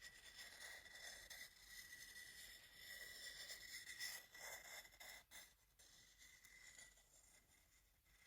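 Makeup brush bristles brushing and sweeping over a wooden bowl: a soft, hissy scratching that is strongest about halfway through and fades lower after that.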